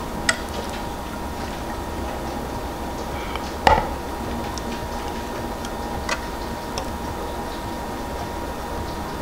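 Relish being poured from a pot into small glass canning jars: a few light clicks and taps of the pot against the glass, the loudest about a third of the way in, over a steady low hum.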